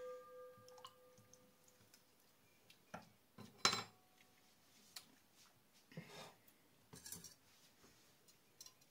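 Metal pot ringing and fading after a knock, then a few scattered clinks and knocks of utensils against metal pots and bowls. The loudest knock comes a little over three and a half seconds in.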